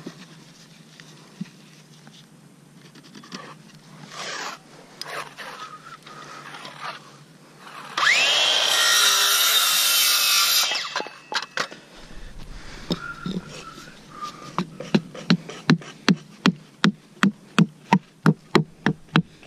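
A power saw spins up with a rising whine and cuts for about two and a half seconds. Some seconds later a hammer starts striking wood in quick, steady blows, about three a second, as formwork is knocked together for a concrete column core.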